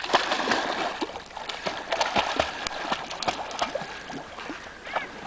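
A dog splashing into a lake and paddling out, water sloshing and splashing in many quick small bursts, heaviest as it plunges in at the start.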